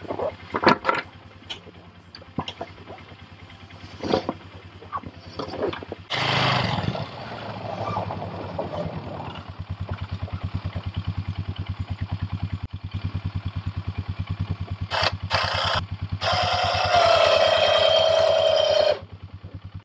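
Knocks and clanks from handling an ATV's snow plow blade, then the ATV engine starts about six seconds in and idles with a fast even pulse. Near the end a louder steady whine joins for about three seconds, then cuts off.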